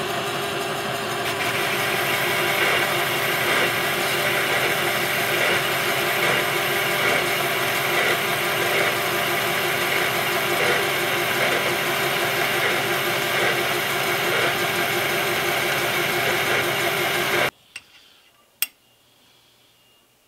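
Metal lathe running while a solid-carbide boring bar cuts out the bore of a stainless steel part, a loud steady machine drone. It cuts off suddenly near the end, followed by a couple of faint sharp clicks.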